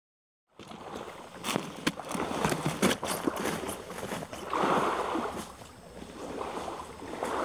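Small waves lapping and washing over the stones at the water's edge, coming in slow swells. A cluster of sharp clicks and knocks, like stones and debris knocking together, comes in the first few seconds.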